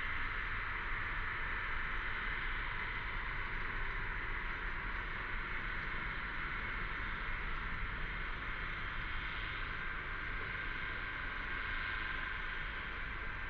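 A chorus of cicadas buzzing in a steady, unbroken drone, over a low rumble.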